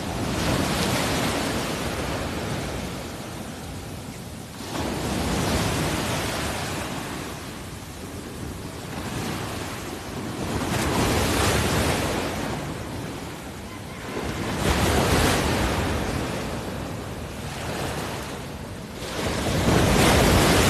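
Sea water rushing and splashing along the side of a moving outrigger boat, swelling loud about every four to five seconds, with wind on the microphone.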